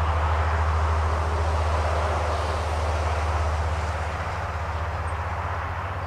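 New Holland T7060 tractor's six-cylinder diesel engine running steadily under the heavy load of pulling a reversible plough, a deep drone that eases off slightly in the second half.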